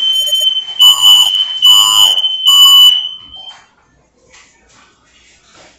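Smoke alarm sounding a loud, high-pitched pulsing beep, about one beep a second, which stops about three and a half seconds in. It is a false alarm, with no fire.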